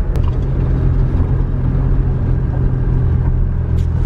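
Ute's engine running with tyre noise as it drives along a dirt track, heard from inside the cab: a steady low rumble.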